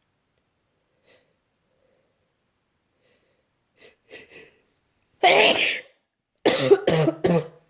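A woman with a cold sneezing once, loudly, about five seconds in, after a few faint short breaths, then coughing three times in quick succession near the end: a worsening cold cough.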